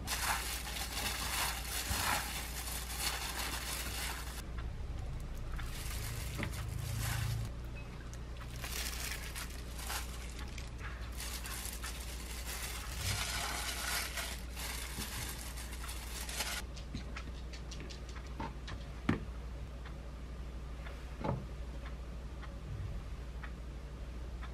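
A hand in a plastic glove mixing and lifting sauced buckwheat noodles, wet squishing with glove crinkle in stretches. After that it goes quieter, with a few light taps as toppings are set on the plates.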